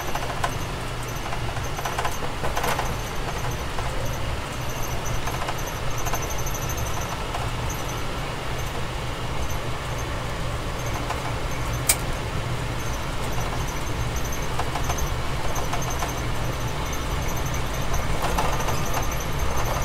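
Amtrak Keystone Service passenger train running along the track, heard from inside the car: a steady low rumble with a faint high squeal that comes and goes, and one sharp click about twelve seconds in.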